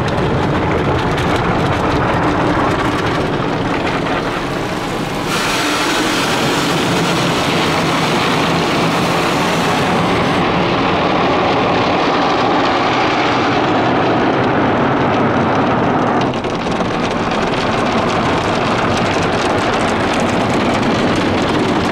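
Spinning cloth brushes and water spray of an automatic soft-touch car wash scrubbing the car, heard from inside the closed cabin: a loud, steady rush of noise that shifts in tone several times.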